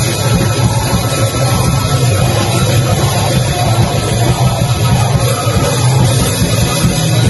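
Live rock band playing loud, heavy rock: electric guitar and drum kit together, continuous and dense.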